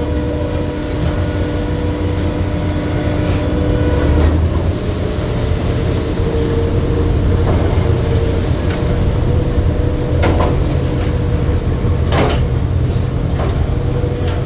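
A crab fishing boat's engine and deck machinery running steadily, a low drone with a steady whine over it, with several sharp knocks from the deck.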